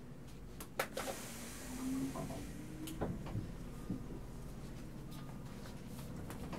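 Interior of a Hankyu 7000 series car with no motor sound: a few sharp clicks and knocks, and a hiss of air starting about a second in and lasting about a second, over a low steady rumble.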